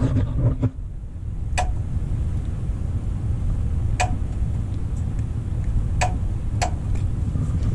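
Caterpillar 793B's A/C compressor clutch clicking in four times, about two seconds apart, as the high-low pressure switch connector is unplugged and the circuit made. The click shows that the wiring to the clutch is good and points to a bad connection at the switch. A steady low rumble of the truck's machinery runs underneath.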